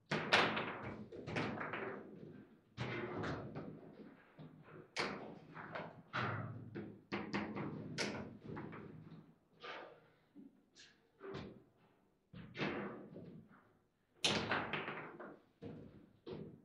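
Table football (foosball) in play: irregular sharp knocks and thuds of the ball being struck by the rod-mounted players and banging into the table, some strikes in quick clusters, the hardest just after the start and near the end.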